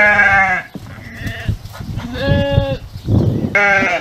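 Newborn goat kid bleating three times: a wavering bleat at the start, a steadier one about two seconds in, and a short one near the end.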